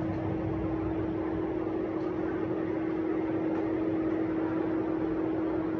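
A steady machine hum: one constant tone held over a low, even rushing noise, with a couple of faint ticks.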